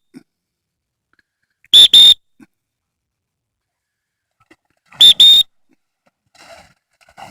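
Dog training whistle blown as a pair of short, shrill toots, then a second pair about three seconds later: the handler's come-in signal to a retriever working in water.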